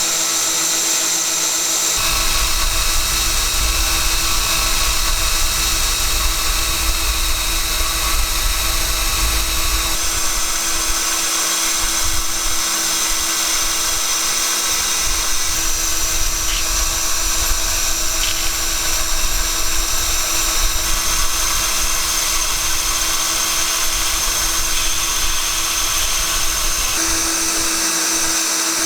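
An electric power tool running steadily at high speed, its hum and whine changing abruptly several times as one stretch of work gives way to another.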